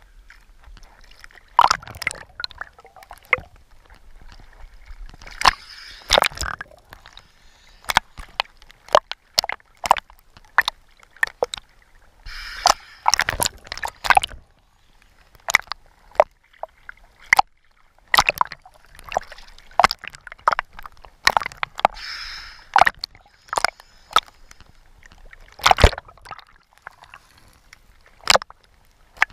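Water sloshing and gurgling around an underwater camera, with many sharp, irregular clicks and knocks and a few bubbling hisses, each lasting a second or so.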